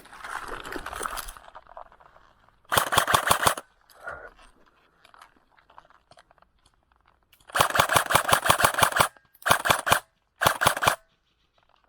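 Airsoft gun firing on full auto in four rapid bursts: a short one about three seconds in, then a longer burst followed by two short ones near the end.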